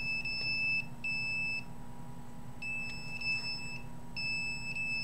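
Handheld detector's alarm beeping: a high-pitched electronic tone in runs of about a second with short gaps between them, as the meter picks up a signal.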